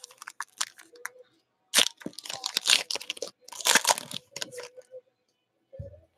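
Foil wrapper of a Panini Prizm basketball card pack crinkling and tearing as it is pulled open by hand, in irregular crackly bursts, the loudest stretch about two to four seconds in. A short low thump comes near the end.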